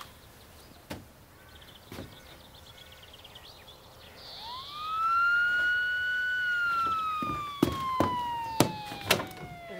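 Police car siren sounding one long wail: it rises quickly, holds, then slides slowly down in pitch. A few sharp knocks come near the end.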